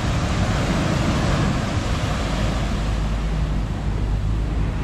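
Ocean surf washing steadily onto the beach, with wind rumbling on the microphone.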